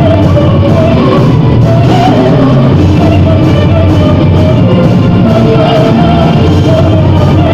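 Gothic metal band playing live, loud and dense, with a voice singing over the distorted band and drums.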